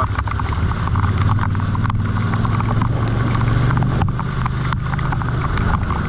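V-twin adventure motorcycle engine running steadily at low revs on a rough downhill track, with scattered clicks and knocks over it.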